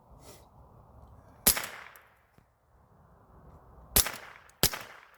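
Three shots from a Rossi semi-automatic .22 LR rifle, each sharp crack followed by a brief echo. The first comes about a second and a half in, and the last two come close together near the end.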